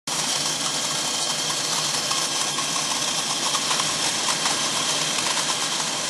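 Vintage movie projector running: a steady whirring hiss with a faint rapid clatter.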